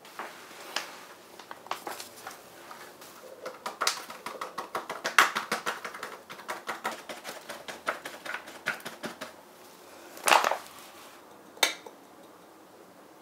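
Paper flour bag crinkling as flour is poured from it into a glass measuring jug, a quick run of small crackling ticks. A louder knock comes about ten seconds in, then a single click.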